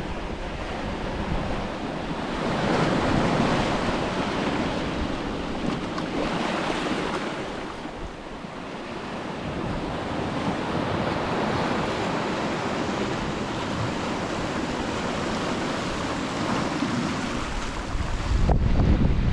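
Sea waves breaking and washing up the shore, swelling and easing in slow surges, with wind buffeting the microphone. A heavy low wind rumble comes in near the end.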